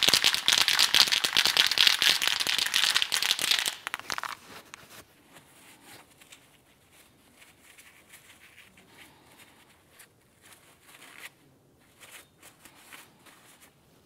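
Loud crinkling and rustling of a paper towel being handled for about the first four seconds, then faint rubbing as the towel wipes across the face of the wheel hub.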